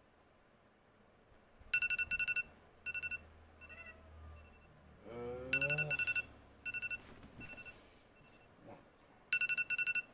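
Mobile phone sounding a repeating electronic ringtone: a quick flurry of high beeps followed by a few slower single beeps, the pattern coming round three times. About five seconds in a man's voice gives a brief groan.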